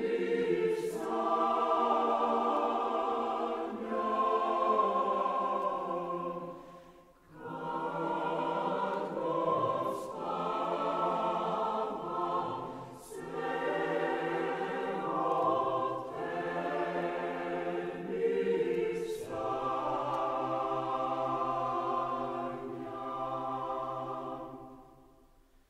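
Choir singing a cappella in sustained, many-voiced phrases of a Serbian choral kolo, breaking off briefly about seven seconds in and fading out near the end.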